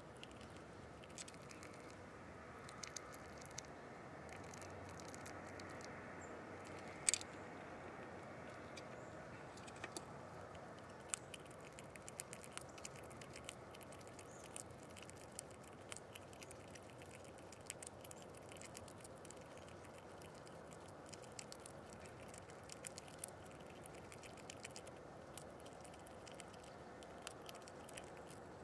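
Small animal feeding on nuts and seed at a windowsill: irregular small clicks and taps throughout, with one sharper click about seven seconds in, over a faint steady hiss.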